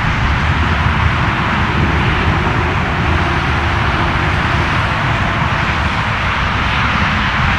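Jet airliner engines giving a steady, even rush of noise with a low rumble underneath.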